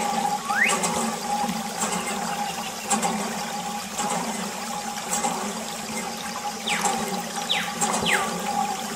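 Water trickling and splashing from a thin plastic tube into a small plastic toy tank, over a steady hum.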